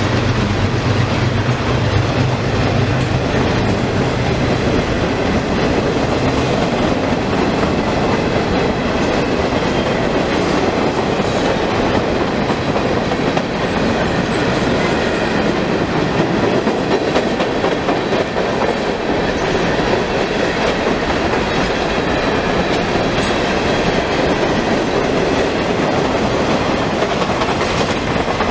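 Freight train cars rolling past at speed: a steady rumble and clatter of steel wheels on the rails, with a low hum that fades out about five seconds in.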